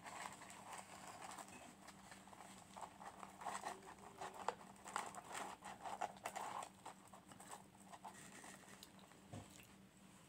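Faint close-up chewing of French fries, a run of small soft clicks and crackles that thins out near the end, mixed with fingers picking fries from a paper carton. A low steady hum sits underneath.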